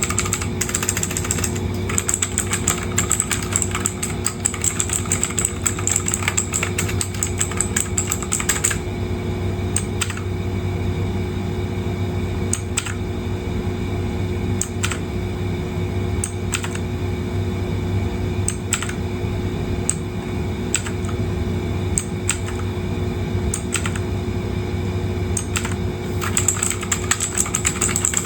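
Leaven K550 mechanical keyboard with clicky blue switches being typed on. Rapid typing runs for about the first nine seconds and starts again near the end, with only scattered single keystrokes in between, over a steady low hum.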